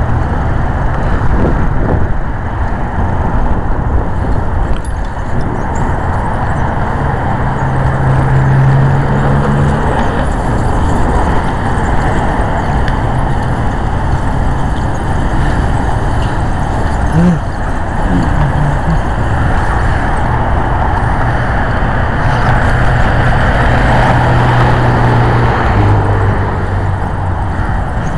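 Car on the move: steady loud road and engine noise, with a low engine hum that shifts pitch a few times.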